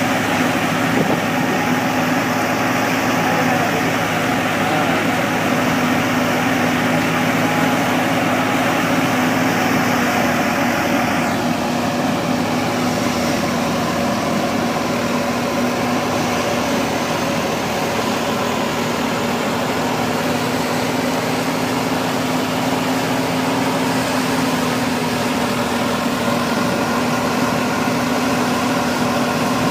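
Tractor-driven wheat thresher running steadily under load while straw is fed in: a loud, constant mechanical drone from the Al Ghazi tractor's diesel engine and the spinning threshing drum.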